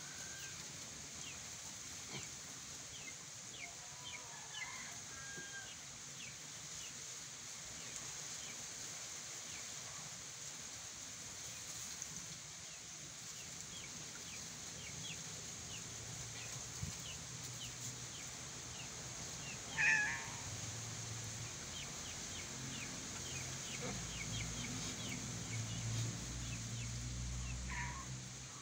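Birds chirping in short, repeated calls over a steady high hiss, with one louder call about twenty seconds in and a low rumble in the last few seconds.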